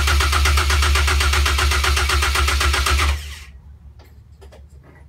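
Caterham 420R's four-cylinder engine turning over on its starter motor, an even chugging of about ten pulses a second without catching. It cuts off suddenly about three seconds in, leaving a few faint clicks.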